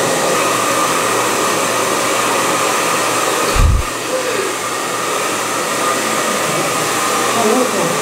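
Handheld hair dryer blowing steadily while drying a small dog's wet coat: an even rushing blow with a steady whine in it. A brief low thump about three and a half seconds in.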